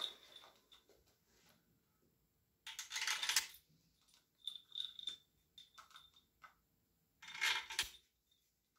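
Steel girdle bolts clinking as they are dropped one by one into the main bearing girdle of a Honda K20A engine block, several small ringing clicks. Two longer metallic rattles come about three seconds in and again about seven and a half seconds in.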